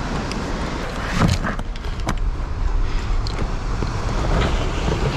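Scuffs and knocks of shoes, hands and gear against granite as someone clambers down a narrow rock gully, over a steady low outdoor rumble. The sharpest knock comes about a second in.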